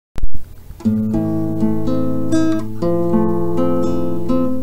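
Acoustic guitar music: plucked notes changing over a held low bass note, starting about a second in. Just before it, a short, loud pop.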